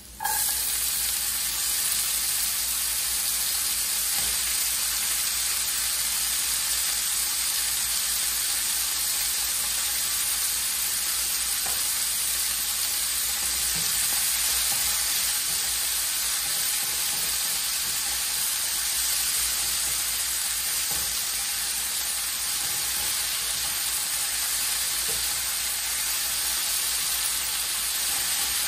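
Beet greens sizzling in a hot skillet of olive oil and garlic. The sizzle starts suddenly as the greens hit the pan, then runs on steadily while they are stirred with a spatula.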